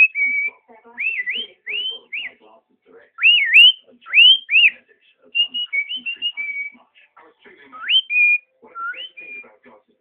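Cockatiel singing: a string of clear whistled notes, many sweeping quickly upward and some held steady, with short gaps between phrases.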